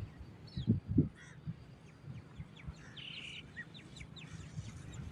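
Birds chirping in a series of short, quick, falling chirps, with a couple of low thumps about a second in.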